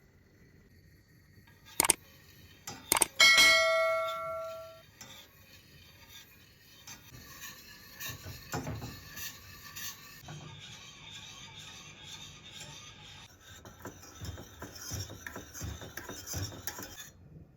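Kitchen utensil sounds: two sharp clicks, then a piece of metal cookware rings loudly when struck, fading over a second or so. After that comes a long stretch of scraping and rubbing with soft knocks, like a utensil stirring or scraping in a pot or bowl.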